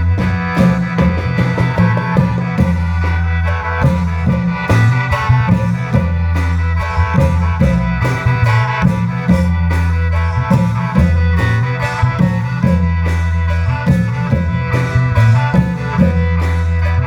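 Isan klong yao ensemble music: long drums and cymbals keep a steady, quick beat under a melody in the style of the khaen, with a steady bass line underneath.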